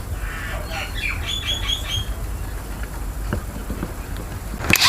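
A bird chirping a quick series of short calls over a steady low hum. Near the end there is a brief, loud, sharp noise.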